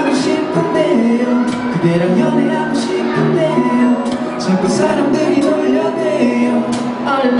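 Live pop band performance: a male lead vocalist singing into a microphone over acoustic guitars, bass guitar and drums.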